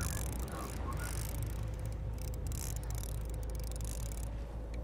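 Boat engine running with a steady low rumble, with a faint steady hum over it and irregular bursts of hiss from wind and sea.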